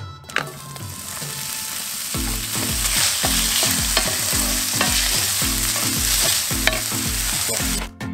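Diced bacon dropped into hot oil in a cast-iron skillet, landing with a clatter and then sizzling loudly as it fries and is stirred with a wooden spoon. The sizzle cuts off abruptly near the end.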